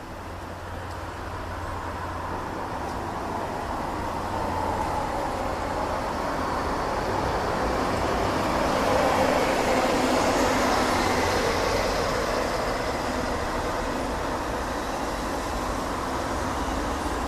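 Distant roar of a four-engined Airbus A340-600 jetliner's Rolls-Royce Trent 500 engines at cruise altitude, heard from the ground. It swells to its loudest about nine seconds in and then eases slightly, with a hollow tone that sweeps down and back up in pitch as the airliner passes over.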